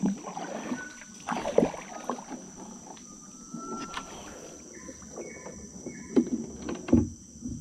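A wooden canoe paddle dipping and pulling through river water, with irregular splashes and a few knocks as the strokes come.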